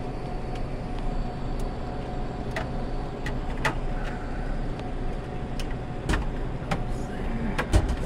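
Clicks and light knocks from plastic parts being handled inside an Ice-O-Matic ice machine, about half a dozen, the sharpest near the end, over a steady low hum.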